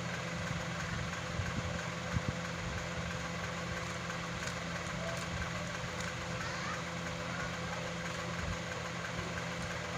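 A steady low mechanical hum, like a small motor running, with a few faint clicks of a Rubik's cube's layers being turned about two seconds in.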